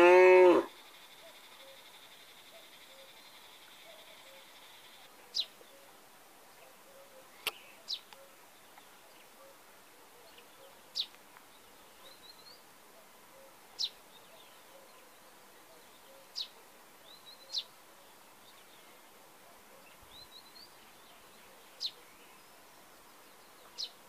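A short, loud animal call that rises and falls in pitch right at the start, then a steady high insect buzz until about five seconds in. After that a small bird gives single sharp, high call notes every two to three seconds.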